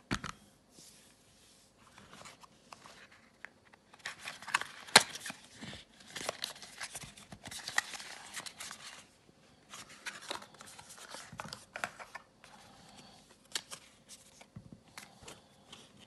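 A small cardboard product box being opened and its contents slid out by hand: irregular scraping, rustling and clicking of cardboard and paper, with a sharp snap about five seconds in and the handling busiest in the middle.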